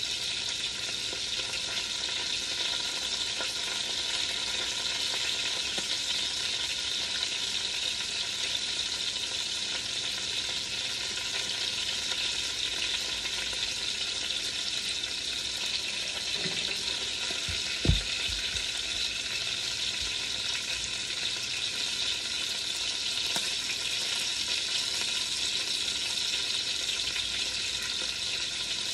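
Chicken sizzling as it browns in an enameled cast iron Dutch oven: a steady frying hiss. One dull thump comes about 18 seconds in.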